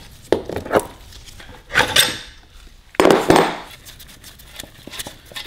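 Metal clinks and knocks from a wrench and loose parts at the front wheel hub of a Honda CT70 mini bike: a handful of separate strikes, the loudest about three seconds in.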